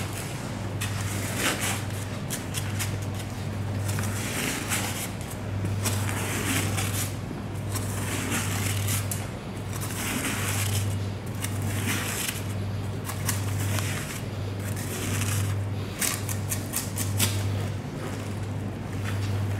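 Bluefin tuna skin being peeled off the flesh by hand and blade: repeated short rasping, scraping and tearing sounds, over a low steady hum.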